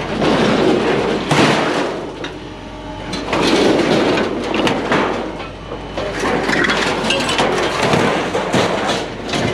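Sheet-metal panels from a gas grill clanking and scraping as they are handled, with repeated sharp knocks in three busy stretches.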